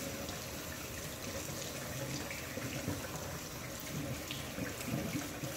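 Kitchen faucet running steadily into a stainless-steel sink, the water splashing as it rinses mud off a French bulldog.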